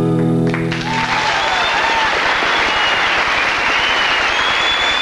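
Final chord of two acoustic guitars ringing out and stopping about half a second in, then a large studio audience applauding, with high whistles over the clapping.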